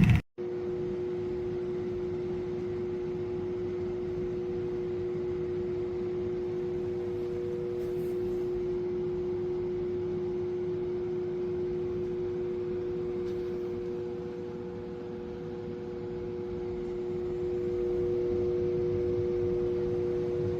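Twin-blade window fan running: steady airflow noise with a two-note motor hum, dipping a little in level past the middle and rising again.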